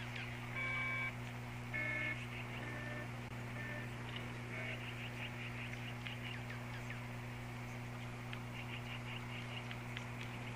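Small birds chirping over and over with short high calls, above a steady low hum. Two brief, louder steady tones sound about half a second and about two seconds in.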